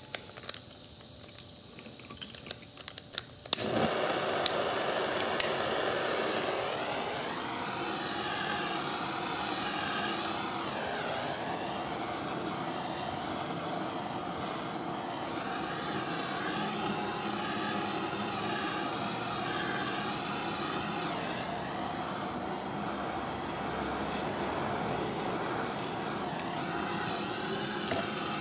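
Hand-held propane torch: a few clicks, then about three and a half seconds in it lights and burns with a steady rushing flame, heating the plastic of a grass catcher chute to soften it.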